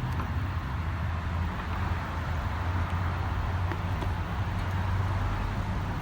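Steady outdoor background noise: an even low rumble with a hiss over it, and no distinct knocks or tool strikes.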